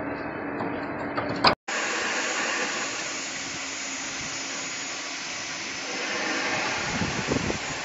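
Multi-spindle CNC drilling machine drilling a steel plate under coolant: a steady hiss of the running spindles, coolant and cutting. It is preceded by a sharp click about a second and a half in.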